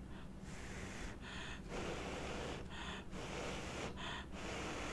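A woman blowing on a hot spoonful of chicken pot pie to cool it: three breathy blows about a second and a half apart, with softer breathing between them.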